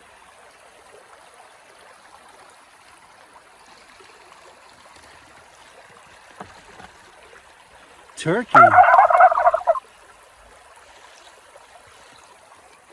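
A turkey gobbling once: a loud, rapid rattling call about a second long, coming right after the spoken word "turkey" near the end. A faint, steady stream runs underneath.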